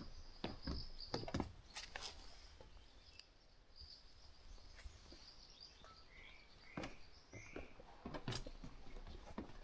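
A hiker's footsteps on a mountain trail, with a lull in the steps in the middle, and birds chirping; three short bird notes come a little past the halfway point.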